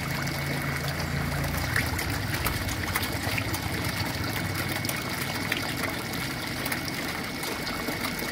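Recirculated water trickling and splashing into a concrete eel-rearing tank, a steady watery running sound dotted with many small sharp ticks at the surface. A low hum sounds under it for about the first second and a half, then stops.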